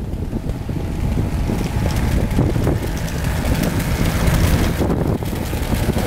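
Strong wind buffeting the microphone over the running engine of a 1968 Bombardier tracked snow plow as it approaches, growing louder about a second in.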